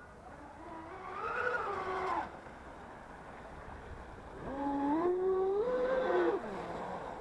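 Radio-controlled speed boat's electric motor whining, rising and falling in pitch with the throttle in two runs; the second run climbs in steps and cuts off sharply.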